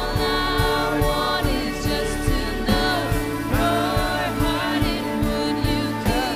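Christian worship song: voices singing over instrumental accompaniment with a steady beat.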